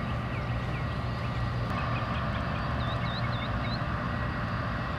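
Steady low hum and noise bed from nearby machinery, with short bird chirps near the start and again around the middle.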